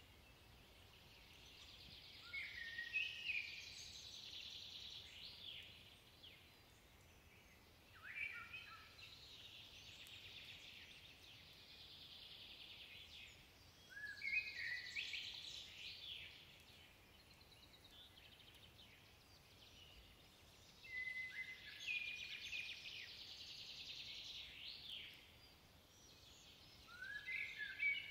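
Common blackbird singing: five song phrases about six seconds apart, each a few low fluting notes followed by a higher squeaky twitter.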